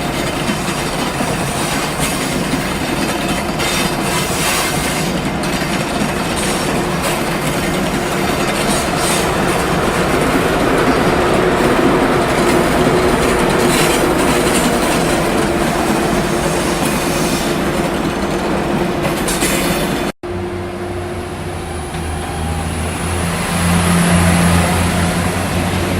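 Train moving through a station, its wheels clattering on the rails with a squeal and a steady tone over the rolling noise. About twenty seconds in, it cuts abruptly to another recording: a low, steady engine hum with a thin, high whine above it.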